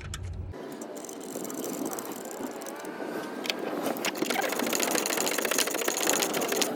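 Ratchet wrench clicking as it tightens a new alternator's mounting bolt. The clicks become fast and steady from about four seconds in.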